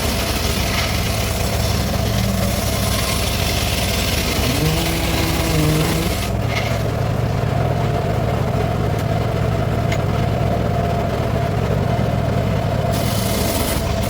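Circular saw rig running with a steady mechanical hum. A high hiss over it stops about six seconds in and comes back near the end.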